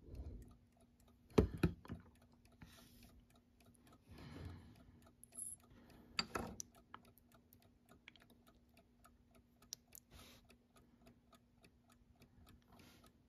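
Bare Westclox Big Ben Style 7 alarm clock movement ticking faintly and evenly, about five ticks a second, as it runs during oiling. A couple of louder knocks come from tools against the movement, about a second and a half in and again near the middle.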